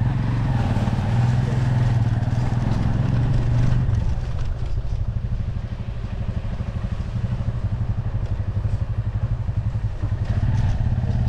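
Motorcycle engine running under way with a fast, even pulse, louder for the first four seconds and then settling to a slightly quieter, steadier note.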